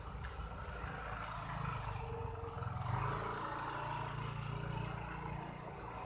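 Steady low engine hum, growing louder through the middle and easing off near the end.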